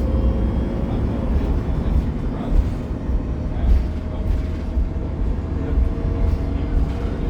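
Interior ride noise of a 2015 Gillig 40-foot CNG transit bus, heard from inside the cabin: its Cummins Westport ISL G natural-gas engine and Voith driveline give a steady deep rumble, with a faint whine that slowly rises in pitch.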